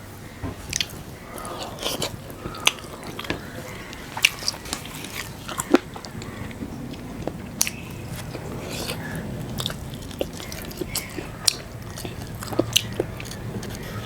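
Close-miked eating: irregular sharp bites, crunches and wet mouth clicks of someone chewing a meal.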